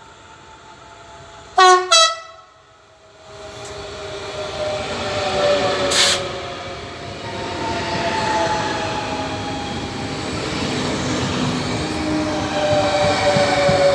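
Two short, loud train horn blasts, then a Régio 2N double-deck electric multiple unit passing close. Its wheel and running noise builds, carrying a whine that slowly falls in pitch, with a short sharp hiss about six seconds in and again at the end.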